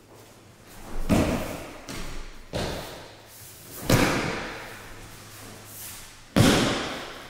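Aikido breakfalls: bodies and hands slapping the mats as partners are thrown with shihonage. There are four heavy thuds spread over about five seconds, the last two the sharpest.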